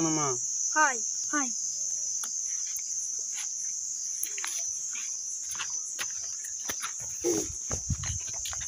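Steady high-pitched drone of insects in the surrounding vegetation, with scattered light clicks, and footsteps on gravel near the end.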